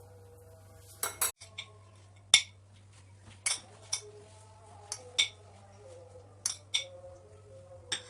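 Cutlery clinking against dishware in about ten light, sharp taps at uneven intervals, as mayonnaise is scooped and spread onto pita bread.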